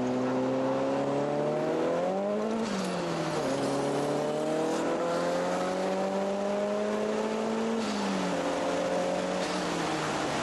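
Nissan S13 Silvia's engine heard from inside the cabin, driven hard on track. The revs climb, fall sharply at a gear change about two and a half seconds in, then climb slowly for about four seconds, before falling away near the eight-second mark and holding steady.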